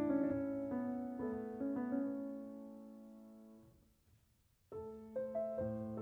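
Background piano music. It dies away to a brief silence about four seconds in, then the piano starts again.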